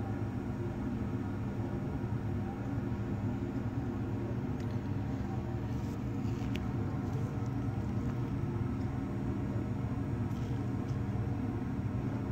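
Steady low machine hum with a few faint light clicks around the middle.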